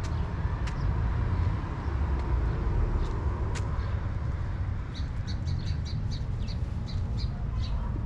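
Steady low rumble of road traffic, with a quick run of short, high chirps starting about five seconds in.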